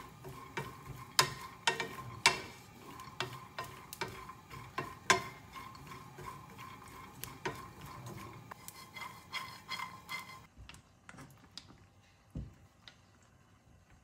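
Wooden spatula stirring and scraping chopped walnuts in a nonstick frying pan: an irregular run of clicks and taps as the nut pieces are tossed while they toast. About ten seconds in it drops to a few faint taps and one low thump.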